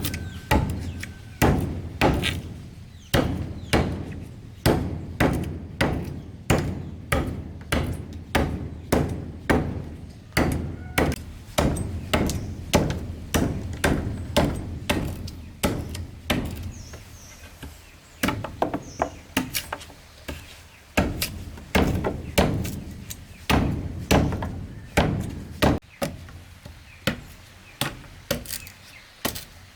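A hand tool striking wood again and again in a steady rhythm, about three heavy strikes every two seconds, with a short break about 17 seconds in.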